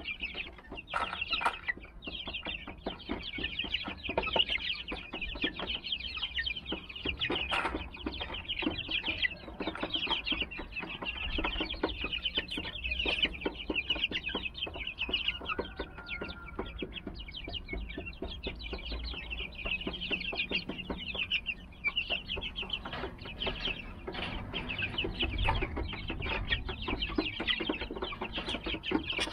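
A flock of 38-day-old silver laced Wyandotte chicks cheeping continuously, many high-pitched chirps overlapping at once.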